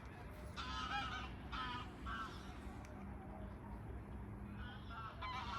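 Geese honking, in several short clusters of calls: about half a second in, again around two seconds in, and near the end. The calls sit over a steady low background rumble.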